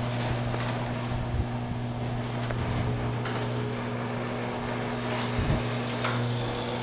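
Craftsman chain-drive garage door opener running, a steady motor hum as it moves the door, with one low knock about five and a half seconds in.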